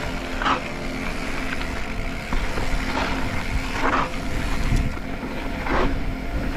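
Full-suspension mountain bike ridden over a dirt track: wind rumble on the body-mounted microphone with tyre and frame noise, broken by three brief louder rasps.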